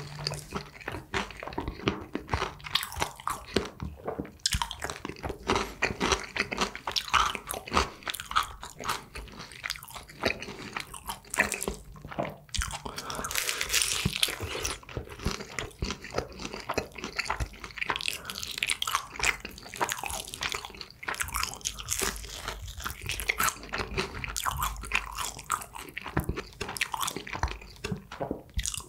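Close-up chewing and crunching of honey-glazed fried chicken: crisp coating cracking between the teeth with wet chewing, thickest around a fresh bite about halfway through.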